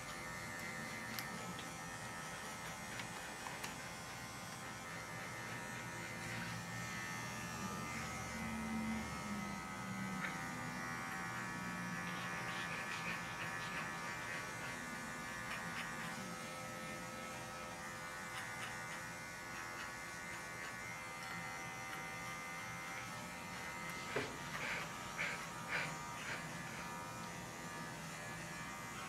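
Electric dog grooming clipper running with a steady buzz as it is worked through a small dog's coat. A few sharp clicks come near the end.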